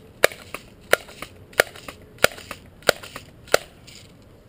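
Daisy BB gun: six sharp clacks in an even rhythm, about one every two-thirds of a second, each followed by a fainter click, stopping a little before the end.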